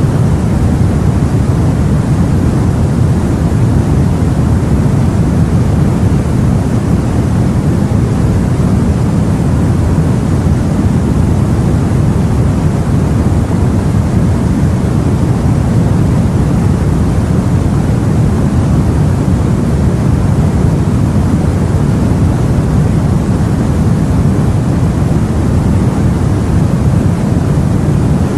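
Continuous deep rushing of the sea as heard aboard a boat, a steady low rumble that holds an even level with no separate wave breaks.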